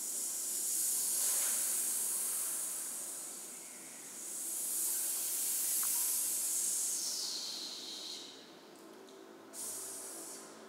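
Performers hissing a long 'sss' with their mouths, as called for by 'SSSSSS' symbols in a contemporary score, in two swells that rise and fade. The second swell sinks lower in pitch before fading, and a shorter hiss comes near the end.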